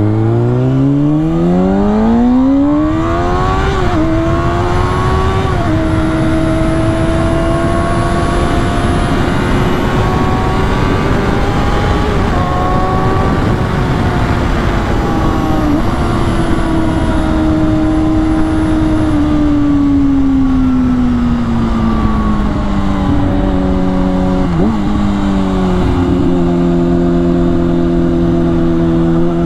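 2010 Kawasaki ZX-6R's 600cc inline-four engine on the move. It accelerates hard, its pitch climbing steeply over the first few seconds, then a gear change settles it into a steady run. Past the middle the pitch falls gradually as the bike slows, with two brief hiccups near the end before it settles lower, all over a steady rushing noise.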